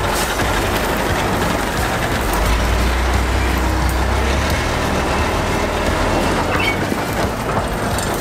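The diesel engine of a MAN KAT 8x8 military truck running steadily close by: a deep, even rumble that swells for a couple of seconds near the middle.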